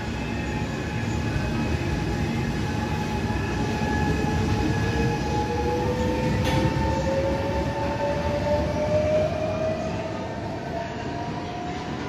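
Trenitalia Jazz electric train pulling away from the platform, its traction motors whining in a slowly rising pitch as it picks up speed, over a steady rumble from the running gear. A single short click sounds about halfway through.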